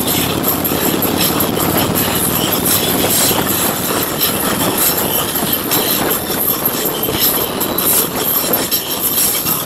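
Riding on a motorcycle: wind rushing over the microphone, mixed with the motorcycle's engine running. It is a steady, loud noise with no clear engine note.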